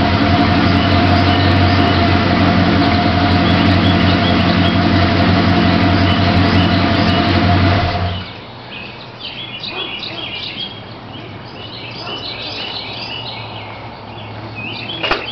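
Ford F-150's exhaust through a Flowmaster 40 muffler and 2.5 in pipe, running loud and steady at a held engine speed, then falling away sharply about eight seconds in to a low, quiet idle. Birds chirp once the engine quiets.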